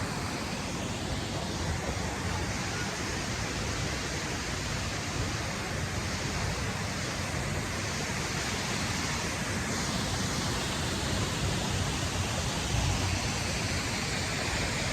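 Steady rushing of a high waterfall, growing slightly louder near the end.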